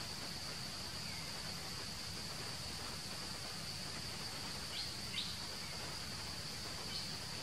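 Steady high-pitched insect drone over a background hiss, with a few short high chirps: two together about five seconds in and one near the end.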